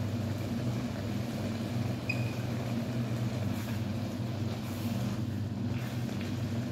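Minced chicken and lemongrass frying in a pan, stirred with a wooden spatula, over a steady low mechanical hum from the kitchen.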